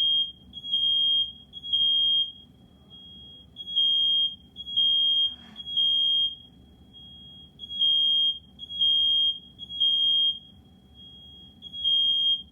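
Smoke alarm sounding its evacuation pattern: very loud, high-pitched beeps in groups of three about a second apart, each group followed by a short pause. It was set off by smoke from cooking.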